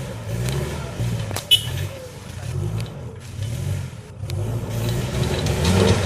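Off-road 4x4's engine revving in repeated surges, rising and falling as the driver works the throttle to crawl over rocks with the differential locked. A single sharp knock about one and a half seconds in.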